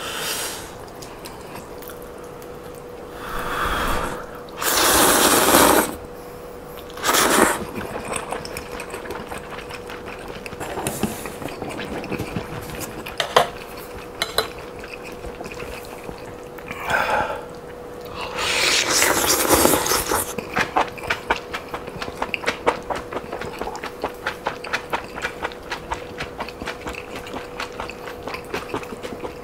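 Close-miked eating: several loud slurps of noodles and broth, each lasting up to about two seconds, then fast wet chewing and lip smacks with many quick clicks. A faint steady hum runs underneath.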